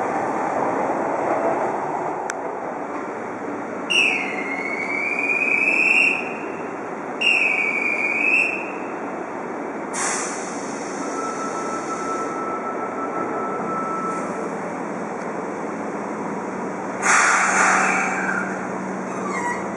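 Subway train running in over curved track and points, its wheels squealing in two curving high-pitched squeals about four and seven seconds in. Later there is a faint steady tone, then a short hiss near the end.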